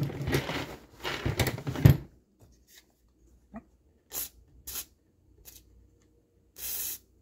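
Short hisses of WD-40 aerosol spray being sprayed onto a rusty spur gear: two brief squirts, then a longer one of about half a second near the end. A louder rough sound fills the first two seconds.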